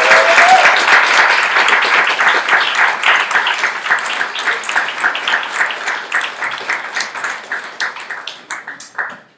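Room applause from a small audience and panel: dense clapping at first that thins to scattered claps and then cuts off abruptly near the end.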